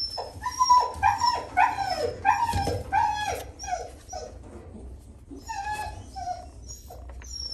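Young tabby kitten mewing in a quick series of short, high cries that fall in pitch, about three a second for the first four seconds, then a few fainter mews.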